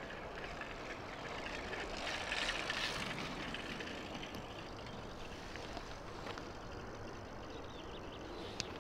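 Steady background noise of distant vehicle traffic, swelling for about a second some two seconds in, with a single sharp click near the end.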